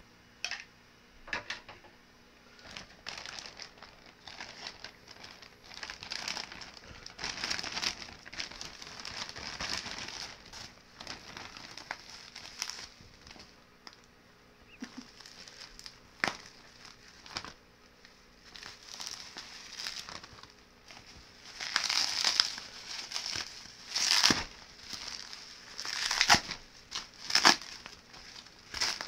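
Plastic packaging, a courier mailer bag and bubble wrap, crinkling and rustling as it is handled, in irregular bursts with a few sharp snaps, busiest near the end.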